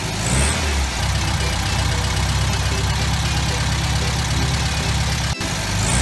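Car engine running steadily as the car drives along, with a brief break about five and a half seconds in.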